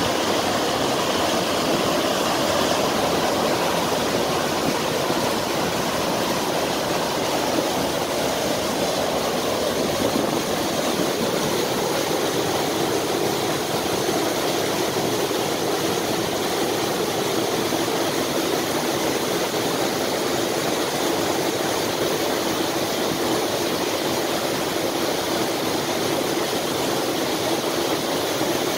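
Water spilling over the tops of wooden canal lock gates and splashing into the lock chamber below, a steady rushing without let-up.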